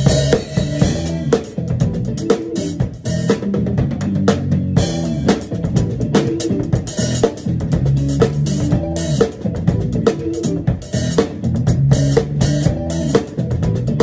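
Drum kit played in a funky groove, with kick, snare and cymbal strikes in a steady rhythm, over a backing track with a bass line.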